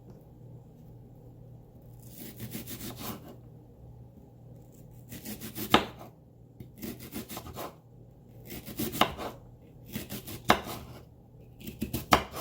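Kitchen knife chopping red onion on a cutting board: six short runs of quick strokes with pauses between.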